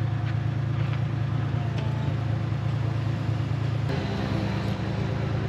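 Engine of a stationary open-sided passenger truck idling with a steady low hum, which shifts slightly in pitch about four seconds in.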